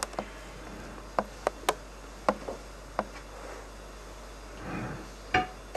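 Scattered light clicks and taps of a spatula against a bowl and serving tray while whipped cream is spread on a cake, with a soft scraping sound about five seconds in.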